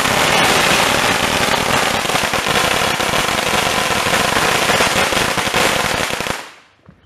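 Ground fireworks going off: a dense, rapid run of loud firecracker bangs and crackling that dies away about six seconds in.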